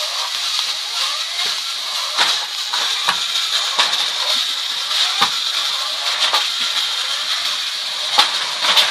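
Small electric motors of a toy RC car and a battery-powered toy train whirring steadily in a high whine, with several sharp knocks and clacks as the RC car bumps into the plastic train and track.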